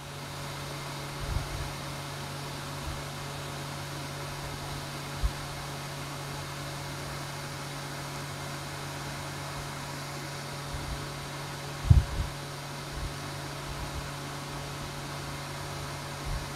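Steady mechanical hum and hiss, like a fan or air conditioner, with a few dull low knocks from a whiteboard being written on with a marker. The loudest knock comes about twelve seconds in.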